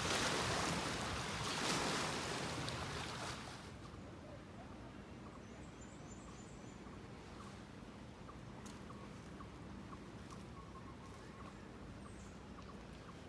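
Rushing water, a steady hiss that drops away sharply about three and a half seconds in, leaving faint outdoor ambience with scattered small clicks and a brief run of high chirps.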